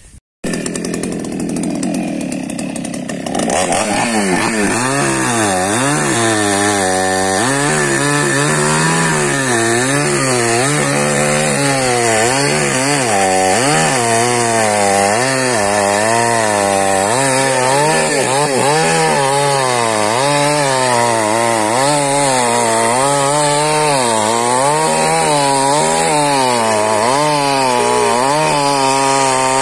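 Petrol chainsaw running at high speed while cutting into a tree trunk. Its engine pitch wavers up and down about once a second as it works under load.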